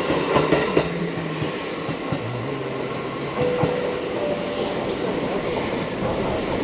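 JR Central electric commuter trains running through a station. Wheels click over rail joints early on, and the low electric hum of the traction motors shifts pitch in steps. Brief high wheel squeals come a few times.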